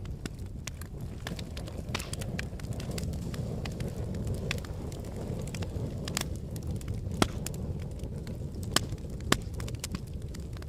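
Volcanic eruption: a low continuous rumble with frequent sharp crackles and pops, and three louder cracks in the last few seconds.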